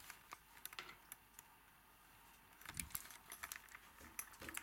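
Faint handling noise: irregular light clicks and jingles, bunched about three seconds in and again near the end, with a few dull low knocks.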